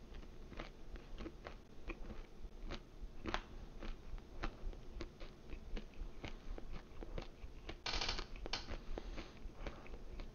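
Chewing a mouthful of baked frozen pizza crust, heard close to the mouth: irregular crisp crunches and wet mouth clicks, with a brief denser crackle about eight seconds in.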